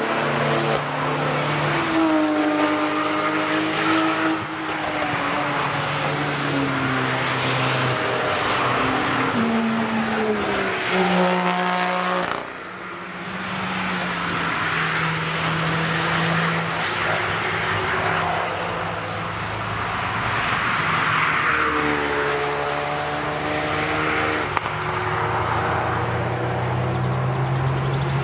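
Cars lapping a race track at speed, engines revving hard: the engine notes climb and fall several times as the cars accelerate through the bends and pass. The sound breaks off sharply about twelve seconds in and picks up again with another car's engine.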